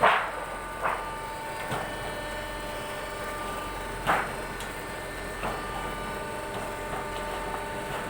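A galvalume roofing-sheet making machine running with a steady hum, with a few sharp metallic knocks at uneven intervals, the loudest right at the start.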